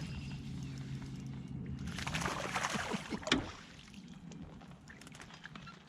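A boat motor's steady low hum, then about two seconds in a burst of water splashing and sloshing beside the boat that ends in a sharp knock.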